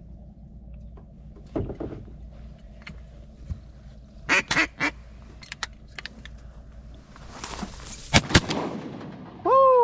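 Duck quacks: a few short quacks, then a quick run of three about four and a half seconds in, and a loud drawn-out quack falling in pitch at the very end. Two sharp cracks come just after eight seconds in.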